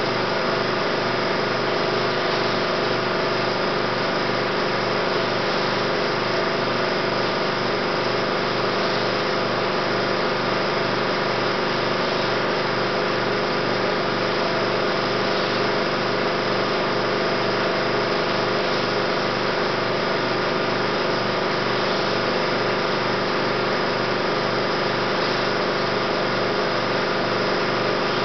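16mm film projector running: a steady mechanical whir and hum, even throughout with no change.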